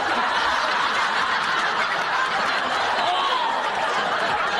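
Sitcom studio audience laughing together, a steady wash of many voices that holds at one level.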